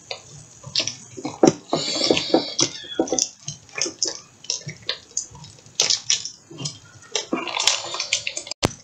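Plastic wrapping and cardboard packaging of a Pokémon trading-card box being handled and pulled open: irregular crinkling, crackling and tearing, busiest about two seconds in and again near the end.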